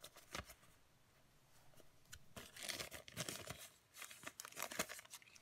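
Small plastic packet crinkling as it is handled in the hands, in a few short rustling bursts over the second half.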